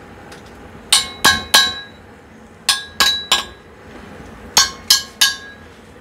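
A screwdriver tapping the steel shell of a new thermal expansion tank, three quick ringing clinks, then the same three-tap pattern twice more, each set under two seconds apart. It is tapped to judge the tank's condition by its ring after refilling.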